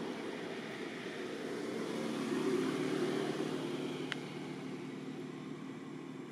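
Low steady engine hum that swells about two to three seconds in and then slowly fades, like a passing motor vehicle or aircraft. A short high click about four seconds in.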